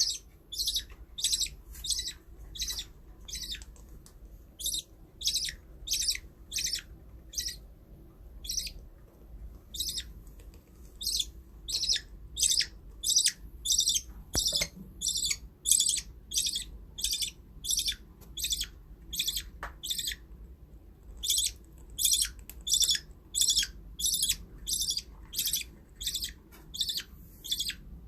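Baby budgie (budgerigar chick) calling in a long run of short, high-pitched chirps, about two a second, with a few brief pauses.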